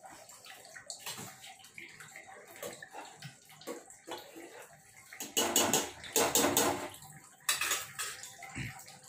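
Dal sloshing and splashing in an open steel pot as it is stirred with a metal ladle, with light clinks of steel. Three louder splashing bursts come a little past halfway.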